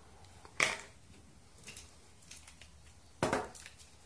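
Hands handling a clear plastic rod cap and a telescopic fishing rod over a wooden table: two louder knocks or clatters, about half a second and three seconds in, with a few light clicks between.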